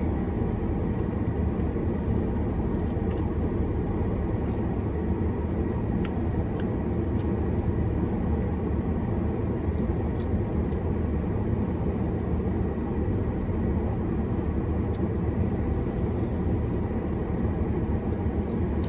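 Steady low background rumble with a few faint clicks over it.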